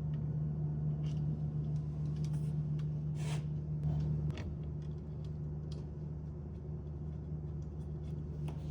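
Scattered light clicks and taps of small hardware and tools being handled while fitting a steering-wheel hub, over a steady low hum.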